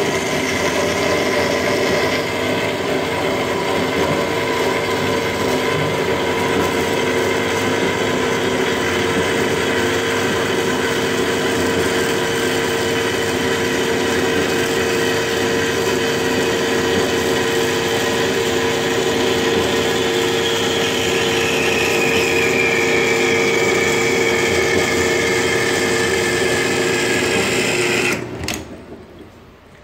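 Horizontal metal-cutting band saw running at low speed, its new blade cutting slowly through a metal block at the half-speed, half-feed break-in rate. It makes a steady whine, and over the last several seconds a higher tone slides down in pitch. The saw then stops abruptly near the end.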